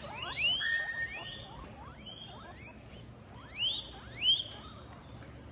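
Guinea pig wheeking: a run of short rising whistles, the loudest two about three and a half and four seconds in.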